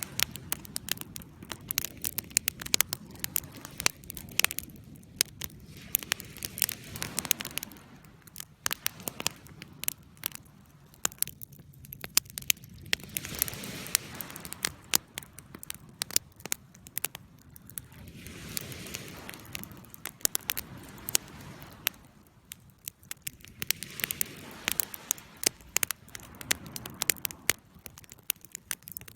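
Campfire burning: irregular sharp crackles and pops from the burning wood over a soft low rush of flame that swells and fades.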